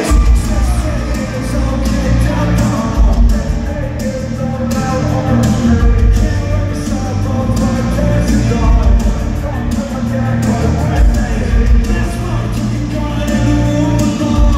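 Live rock music played loud through an arena sound system: a steady beat of drums and heavy bass with a singer's voice over it, echoing in the big hall.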